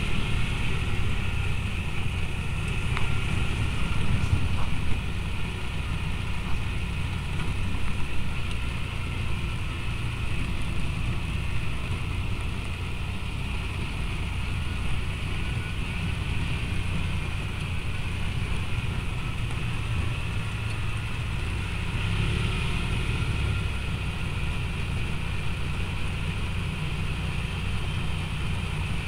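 Side-by-side utility vehicle driving steadily along a dirt track, its engine running at an even cruise with a low rumble and tyre noise on the dirt.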